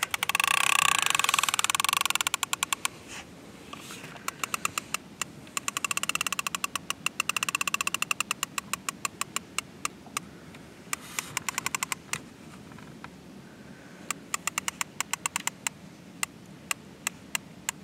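Multiplier fishing reel clicking in quick ratcheting runs under the load of a hooked catfish on a hard-bent rod. A dense run of clicks lasts the first two seconds or so, then bursts of clicks come with short pauses between them.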